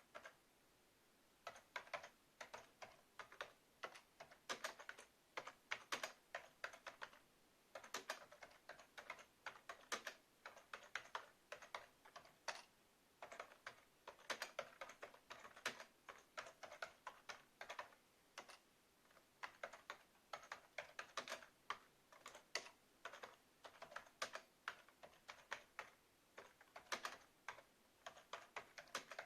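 Typing on a Sun Type 5c rubber-dome keyboard: runs of quick keystroke clicks in bursts separated by short pauses, the first pause lasting about a second near the start.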